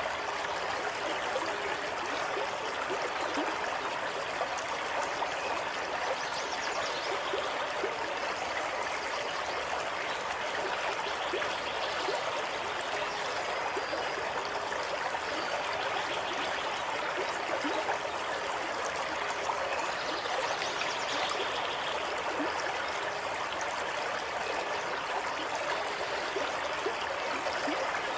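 A small stream flowing and babbling steadily, an even rush of running water with no change in level.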